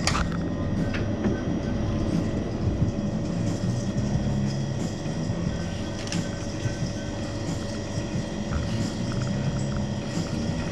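Pasta machine running as a sheet of fresh egg-pasta dough is fed through its rollers and cutter, a steady mechanical rumble.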